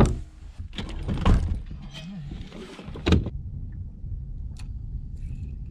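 A few loud, sharp thumps on a fiberglass bass boat, a second or two apart, over a low steady rumble that carries on more quietly afterwards.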